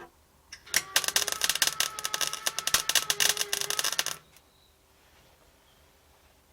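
MIG welder running a short bead on thin sheet-steel boot pan: a dense, spattering crackle that starts about a second in and stops after about three and a half seconds.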